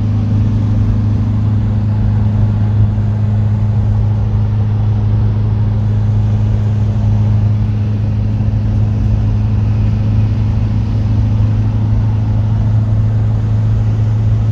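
1975 Volkswagen Type 2 camper van's rear air-cooled flat-four engine droning steadily with road and wind noise, heard inside the cab while cruising at motorway speed.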